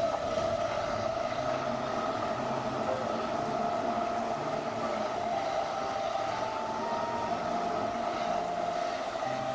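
Battery-powered Plarail toy trains running together, their small electric motors giving a steady whine over the rattle of plastic wheels on plastic track.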